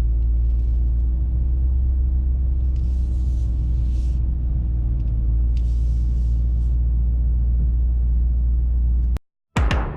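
Mercedes-AMG E63 S twin-turbo V8 heard from inside the cabin, running at steady revs with a deep, even rumble while the car waits at the start lights. Two short hisses come about three and six seconds in, and the sound cuts off abruptly near the end.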